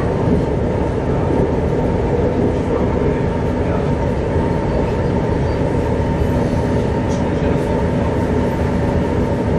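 Alstom Coradia LINT diesel multiple unit running at speed, heard inside the driver's cab: a steady engine and transmission hum over the rumble of wheels on the track.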